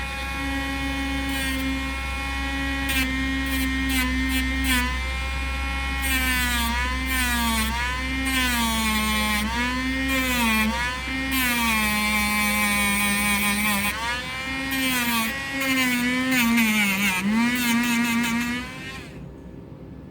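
Handheld Dremel rotary tool running at high speed, its pitch dipping and recovering again and again as it bears on the steel blade, then switched off near the end.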